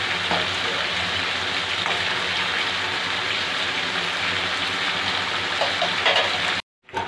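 Mutton curry bubbling at a steady boil in an aluminium wok over a gas burner, an even hiss with a few light clicks near the end. The sound cuts off suddenly just before the end.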